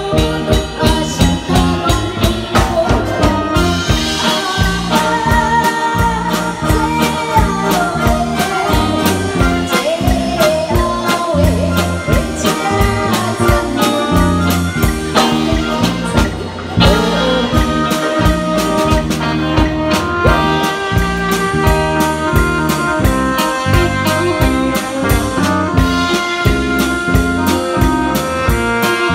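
A woman singing a song through a microphone with a small live band: a drum kit keeping a steady beat under guitar and keyboard.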